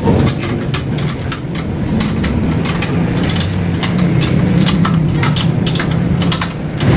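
Many short metallic clicks and knocks as the cast-metal head of a chaff cutter is handled and seated on a steel stand, over a steady low engine-like drone.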